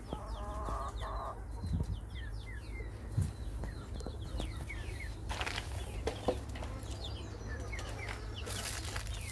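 Chickens calling off camera: a hen's drawn-out call in the first second, then many short, high, falling peeps throughout, with two brief rushes of noise, one about five seconds in and one near the end.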